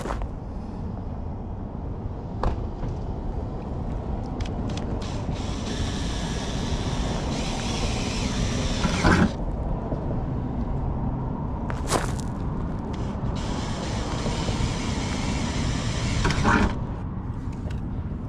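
Cordless drill boring pilot holes into a van's sheet-metal rear door, the motor whirring under load as the bit cuts, in two runs of about four seconds each with a few sharp knocks between them.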